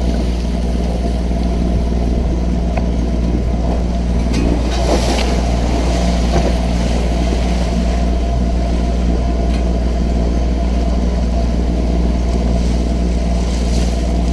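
A sailboat's auxiliary engine running steadily, propelling the boat under power in a flat calm: a constant low drone with evenly spaced tones, plus a faint wash of water and wind.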